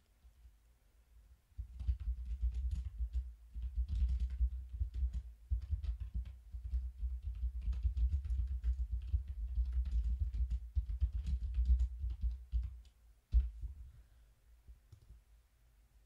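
Typing on a computer keyboard: a fast, uneven run of key clicks with dull thumps. It starts about a second and a half in and stops near the end, with one louder tap just before it stops.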